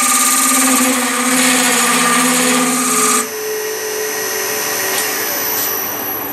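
Wood lathe spinning an ash blank while a narrow 3 mm cutting tool bores into its end grain, a loud scraping cut with shavings flying. About three seconds in the tool is lifted away and the cutting stops abruptly, leaving the lathe running with a steady motor hum.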